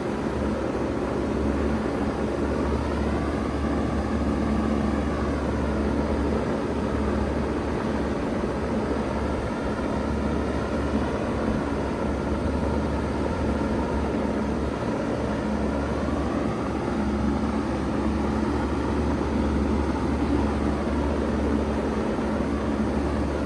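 2000 Bard 3-ton wall-hung heat pump running steadily in cooling mode: a constant low compressor hum under the broad rush of the outdoor fan, with slow whooshing sweeps in the fan noise.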